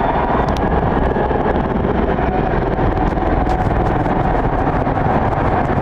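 Large stadium crowd making a loud, steady roar.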